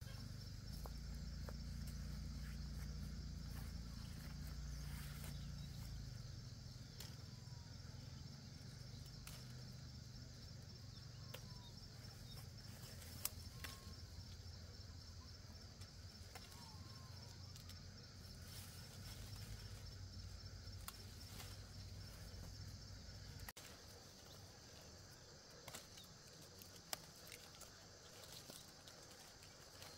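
Steady high-pitched insect chirring outdoors, over a low rumble that stops abruptly about three-quarters of the way through. A few faint bird chirps and light clicks come and go.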